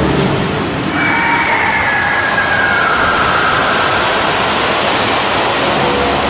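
Loud, steady rushing noise from an animatronic fire-and-fog show, with a whistling tone that slides down in pitch starting about a second in.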